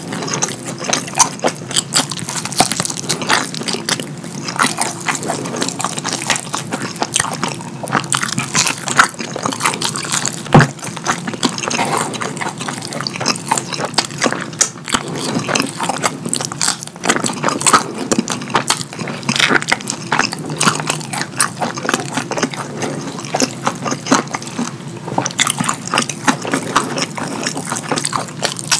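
Close-miked wet, sloppy chewing, biting and lip-smacking of sauce-coated fried chicken: a steady run of sticky clicks and smacks.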